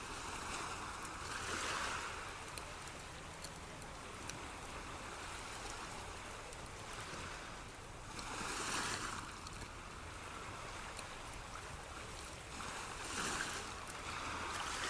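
Soft, steady rushing water noise, like gentle surf, swelling and fading three times.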